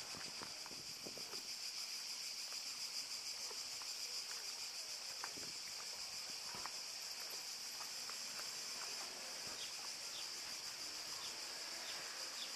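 Steady high-pitched chirring of insects, with a few faint short clicks over it.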